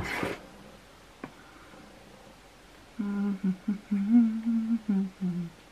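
A woman humming a few short, level notes to herself for about two and a half seconds, starting about three seconds in. Before it there is a short soft noise at the very start and a faint click.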